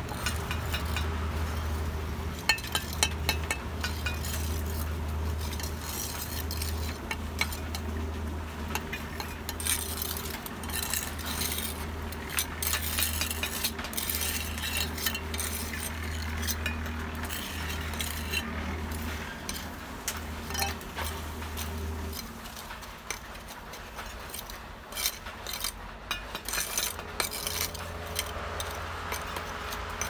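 Steel bricklaying trowels scraping through wet mortar and clinking against clay bricks, with many short scrapes and taps as mortar is spread and bricks are set and tapped down. A steady low machine hum runs underneath and stops about two-thirds of the way through.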